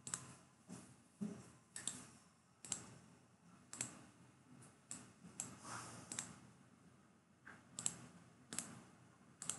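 Computer mouse clicking: about a dozen faint single clicks at uneven intervals.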